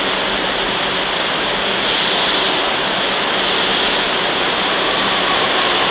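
An IRT R62A subway train approaching through the tunnel toward the platform: a steady rushing roar of wheels on rail that grows slightly louder.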